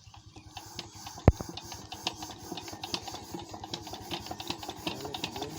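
Freshly repaired 16 HP Chief single-cylinder 'peter' diesel engine starting and running with a rapid, regular beat. A single sharp bang stands out about a second in.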